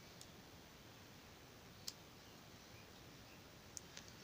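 Four soft clicks of a Casio fx-991EX scientific calculator's keys being pressed, the loudest about two seconds in and two close together near the end, over near silence.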